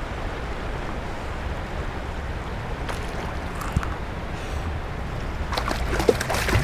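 Steady wind rumble on the microphone with river water lapping against a paddleboard. A few sharp clicks and knocks come about three seconds in and cluster near the end.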